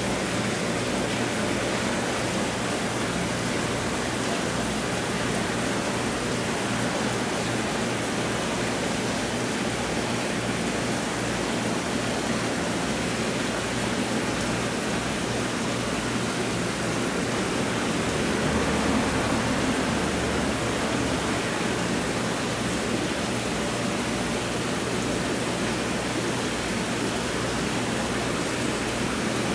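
Aquarium filtration and aeration running: a steady rush of moving water with a faint low hum.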